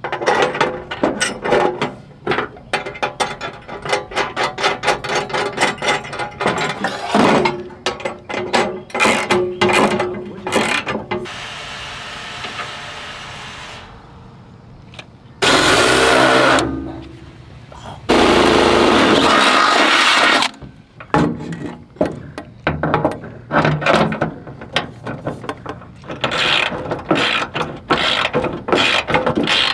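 Rapid ratchet-like clicking of hand tools on metal as bolts are run in. In the middle, a few seconds of steady whirring and then two loud bursts from a cordless power drill; the first burst winds down in pitch.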